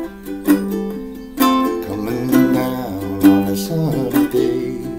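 Ukulele strumming chords, with a sharp accented strum about once a second.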